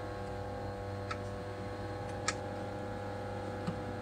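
Steady hum of a suction hot plate's vacuum pump. Three sharp ticks, about a second apart, come from a knife blade cutting and catching on the corners of an iPhone 6S screen.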